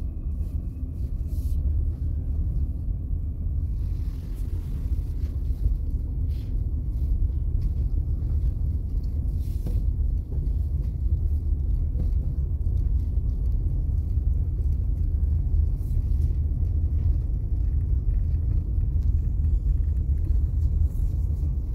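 Car driving along a campground road, a steady low rumble of engine and tyres heard from inside the cabin, with a few faint ticks.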